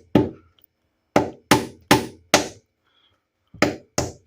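Hammer driving a nail into woodwork: seven sharp strikes, one, then four in quick succession about a second in, a pause, and two more near the end.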